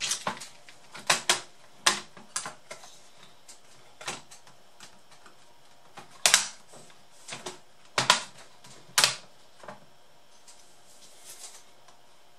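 Plastic clips of an ASUS K53S laptop's palmrest top case snapping and clicking loose as it is pried off the base by hand. There are about a dozen sharp clicks at irregular intervals.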